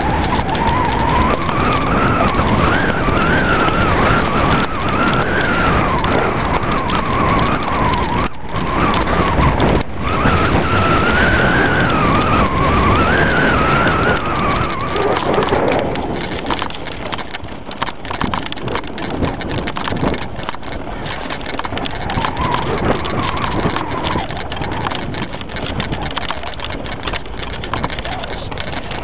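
Mountain bike riding down a rough enduro trail: steady tyre and frame rattle with wind on the microphone. A wavering high whine rises and falls through the first half and fades out about halfway through.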